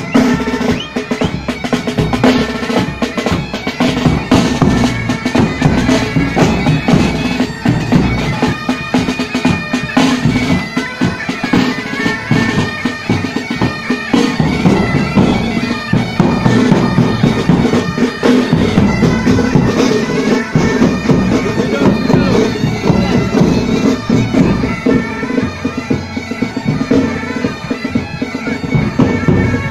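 Pipe band playing: bagpipes sounding a steady drone under the melody, with side drums and a bass drum beating along.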